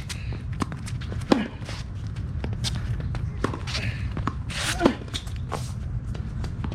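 Tennis rally on a court: two loud racket strikes on the ball, about three and a half seconds apart, with quicker footsteps and shoe scuffs in between, over a steady low rumble.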